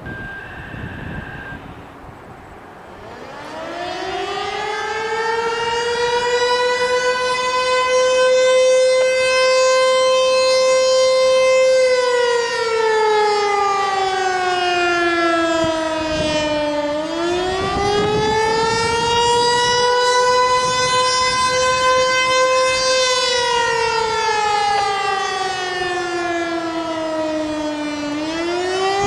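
American Signal T-121 electromechanical civil defense siren winding up a few seconds in, then wailing: its tone climbs, holds high, slides down slowly and climbs again twice. This rising-and-falling wail is the attack signal.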